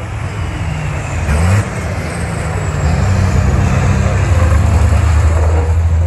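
Race trucks' big turbo diesel engines running hard on track; the engine note climbs about a second in, and the sound grows louder from about three seconds in.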